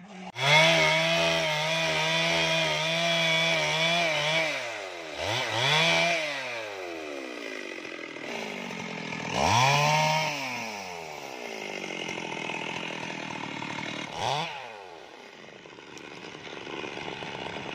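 Stihl MS 382 two-stroke chainsaw running, first at a steady speed, then revved up and down about three times while cutting through sengon logs, its pitch wavering under load.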